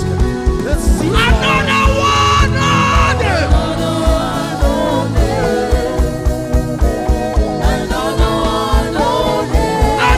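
Live gospel worship music: a band playing a steady drum beat while voices sing.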